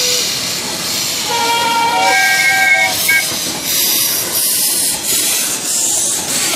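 Live-steam miniature locomotive pulling away, steam hissing steadily as it vents around the cylinders. About a second and a half in, a brief steady tone sounds and shifts to a higher pitch before stopping.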